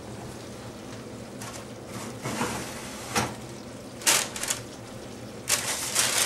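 Oven door opened and the oven rack handled, giving a few sharp knocks and clatters, then a crinkling rustle near the end as a paper cover is pulled off the baking dish.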